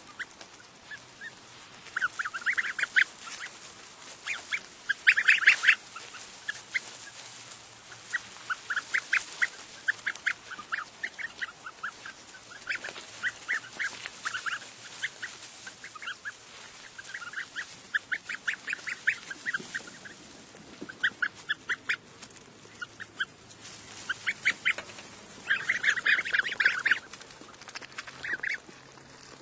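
Goslings cheeping: many short, high-pitched peeps in quick runs and clusters, several birds calling at once, with the loudest bursts about five seconds in and near the end.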